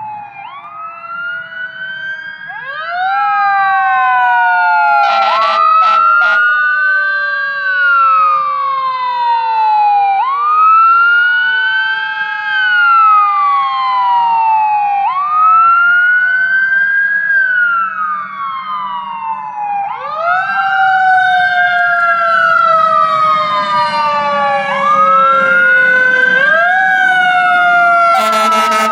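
Several fire-apparatus sirens wailing at once, each rising and falling every few seconds and out of step with the others. Under them a lower siren tone winds slowly down and is brought back up about twenty seconds in and again a few seconds later. Short blasts cut in about five seconds in and again near the end.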